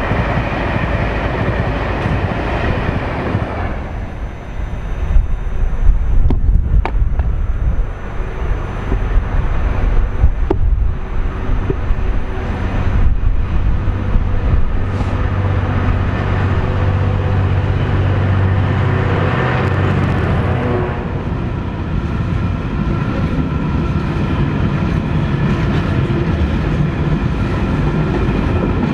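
A Class 390 Pendolino electric train runs away into the distance in the first few seconds. Then a Class 66 diesel-electric locomotive (two-stroke V12) comes up and passes with a deep, steady engine note, loudest between about 15 and 21 seconds. It is followed by a long rake of empty open box wagons rolling past, with steady wheel noise and ringing tones from the wheels on the rails.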